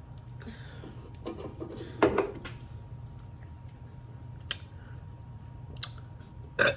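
Low steady room hum with a few short clicks and knocks scattered through it, the loudest a brief knock about two seconds in.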